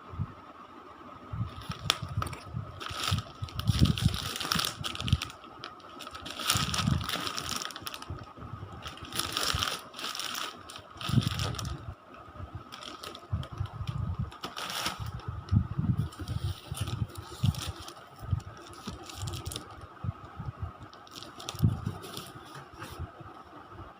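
Packaging being handled and opened: irregular rustling, crinkling and tearing of box and wrapping, with dull knocks, over a faint steady whine.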